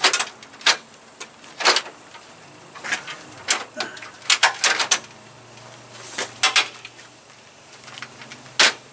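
Plastic front grille of a 2003 Toyota Tacoma being pushed and worked into place: irregular sharp plastic clicks and knocks as its clips are lined up, with a quick run of them about four to five seconds in.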